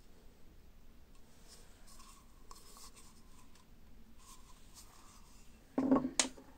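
Hands handling a carved wooden kuksa cup, with faint rubbing and scratching of skin on wood. Near the end comes a louder bump and a sharp knock as the cup is handled off, the loudest sound.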